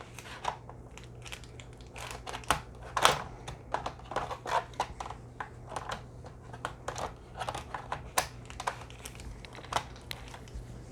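Irregular plastic clicks and taps from handling a Dell Inspiron 15-3000 laptop while its battery is refitted, several a second, over a low steady hum.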